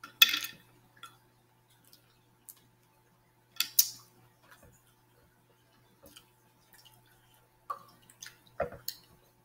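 Close-miked eating of mussels in sauce: a handful of short, wet smacks and clicks, the loudest just after the start and a cluster near the end.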